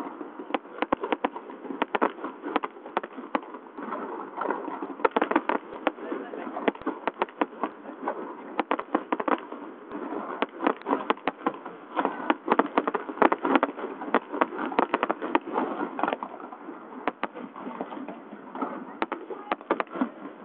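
Fireworks display: a rapid, continuous crackling of bursting shells and crackle stars, many sharp pops each second with no let-up.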